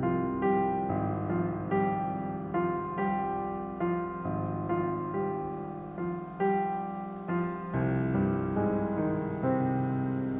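Slow piano music, notes and chords struck about once a second and left to ring out.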